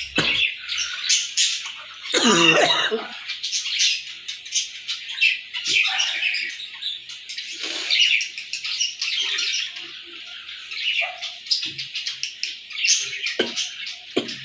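A woman coughing in repeated strained bursts, the biggest about two seconds in, over continuous chirping of birds.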